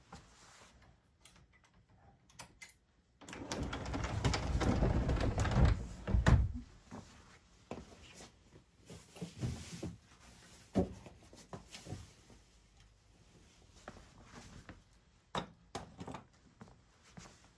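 Scattered knocks and clicks, with a loud stretch of rustling, rushing noise from about three seconds in to about six and a half seconds.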